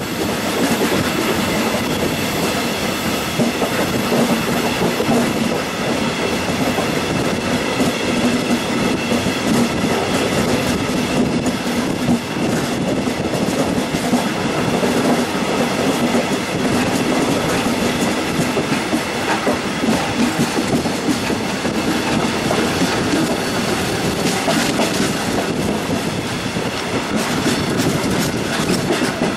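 Passenger train running on the rails, heard from an open window of the train itself: a steady rumble of wheels on track with a continual clickety-clack of rail joints and points.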